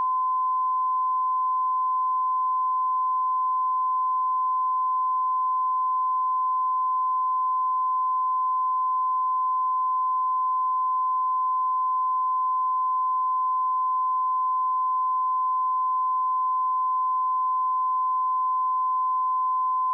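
A pure 1024 Hz sine-wave test tone, a single steady unbroken pitch with no harmonics.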